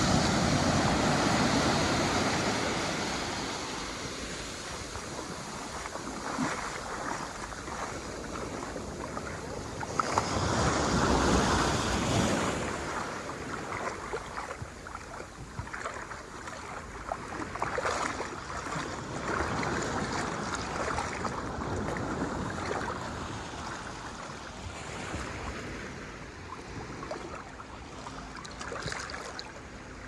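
Small ocean waves breaking and surf washing up over sand, a steady rushing wash that swells louder near the start and again about ten seconds in.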